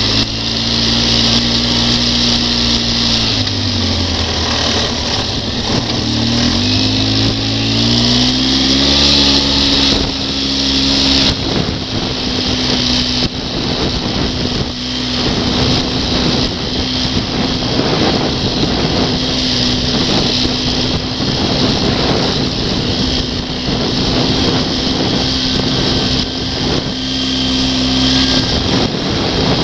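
ATV engine running under way. Its pitch drops about three seconds in, climbs back up by about nine seconds as the throttle opens again, then holds steady, with a constant hiss over it.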